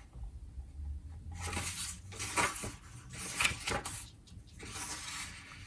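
Pages of a paper agenda being turned by hand: several short papery swishes, about a second apart.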